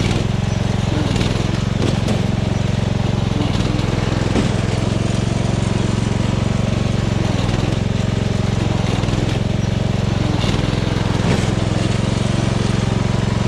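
LT2000 lawn tractor engine running steadily under way, with a few faint knocks over it.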